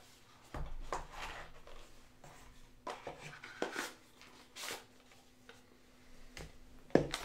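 Cardboard packaging being handled: a scatter of short taps, scrapes and rustles as small cardboard boxes and sleeves are picked up, slid and set down, with a sharper knock near the end.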